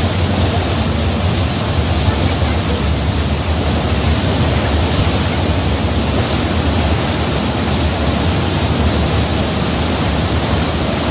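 Steady, loud rush of sea water and wind, as heard at sea from a ship, with no distinct wave breaks.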